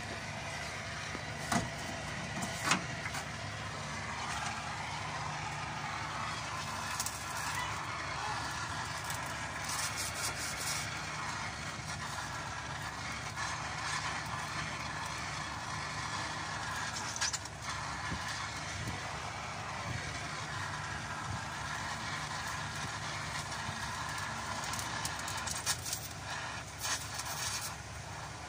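Gas welding torch flame hissing steadily while welding a filler rod onto rusted chassis steel, with a few sharp clicks.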